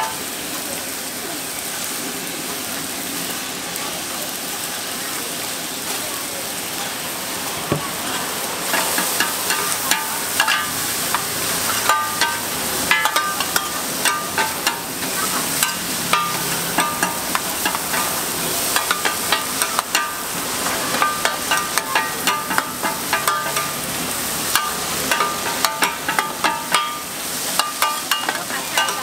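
Pad thai noodles sizzling steadily on a large flat metal pan. About eight seconds in, two metal spatulas start scraping and clanking against the pan in quick, irregular strokes with a metallic ring as the noodles are tossed.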